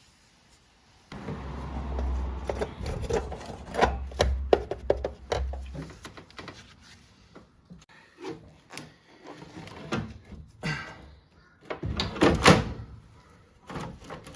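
A series of knocks, clicks and clatter, with a low rumble underneath for the first few seconds; the loudest knocks come near the end.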